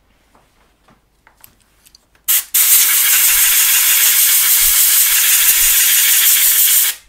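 Can of compressed air blowing across a circuit board to clean it: a short puff about two seconds in, then a steady loud hiss lasting about four seconds that cuts off sharply.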